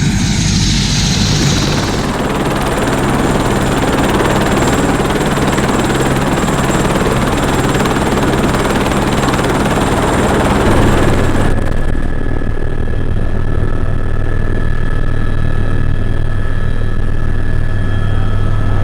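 Helicopter running: loud steady rotor and engine noise with a low hum. About eleven seconds in, the higher hiss drops away suddenly, leaving a steadier low drone and faint whining tones.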